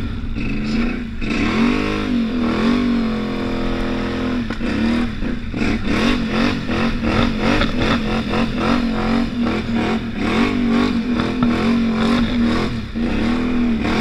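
ATV engine revving up and down as it is ridden in deep snow, its pitch rising and falling again and again over a steady drone.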